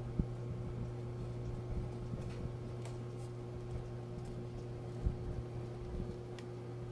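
A steady low hum, with a few soft knocks and light clicks as an amplifier module board with its metal front panel is handled; the loudest knocks come just after the start and about five seconds in.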